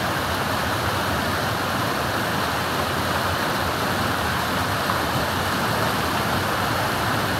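Steady rushing of flowing river water, an even noise that holds at one level throughout.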